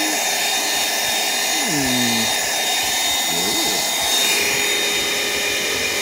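Cordless handheld vacuum cleaner running steadily as it sucks powder off a carpet tile, a constant rushing of air with a thin high whine over it. Twice a short falling vocal sound rises above it, about two seconds in and again a second and a half later.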